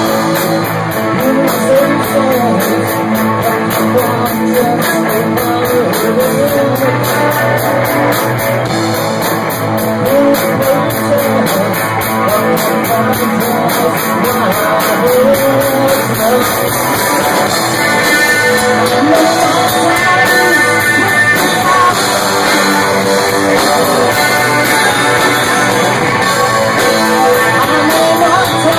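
Live rock band playing loudly: electric guitar, bass guitar and drums, with a singer's voice over them.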